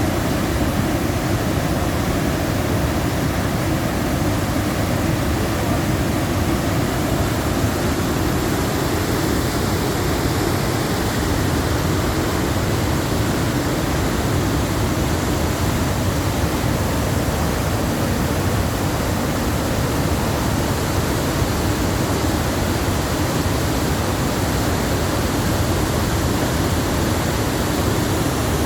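Waterfall: a loud, steady rush of falling water with no change throughout.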